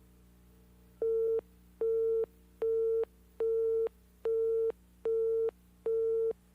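Seven short electronic beeps at one steady pitch, evenly spaced a little under a second apart, over a faint steady low hum.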